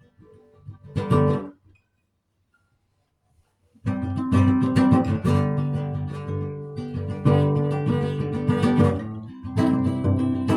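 Acoustic guitar being strummed: a short strum about a second in, a pause of about two seconds, then steady chord strumming starts again near the middle and carries on.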